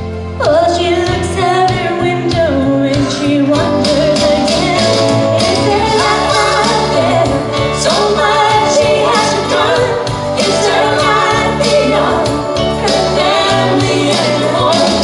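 A woman singing a song over instrumental accompaniment with a steady bass line and drums.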